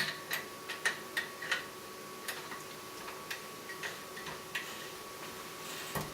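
Light metallic clicks and taps, about a dozen at irregular intervals, as the cap is fitted and fastened on the column of a copper essential-oil still.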